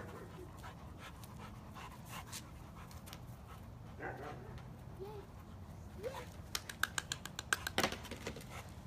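A dog panting, with a quick run of sharp rattling clicks from about six and a half seconds in that ends in a louder knock.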